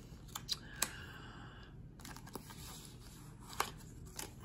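Faint paper rustling and sliding as a card is drawn out of a paper envelope in a picture book, with a few light clicks from handling the pages.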